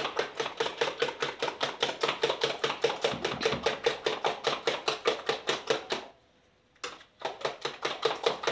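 Eggs and sugar beaten by hand in a plastic bowl, the utensil clacking rapidly against the bowl about five strokes a second. The beating is meant to dissolve the sugar completely into the eggs. It stops for under a second about six seconds in, then carries on.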